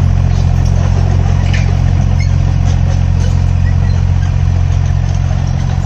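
Diesel engine of a Tata Hitachi 33 excavator running steadily at an even speed, a deep constant hum.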